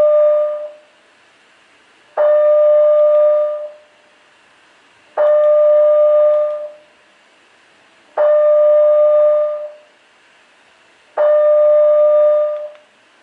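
Building fire alarm sounding: a chime-like tone held about a second and a half, repeating once every three seconds.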